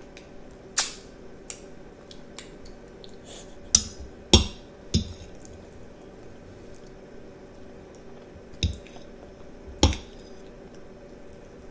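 A child eating spaghetti with meat sauce: wet mouth smacks and noodle slurps, about eight short sharp ones spread unevenly, the loudest a little over four seconds in.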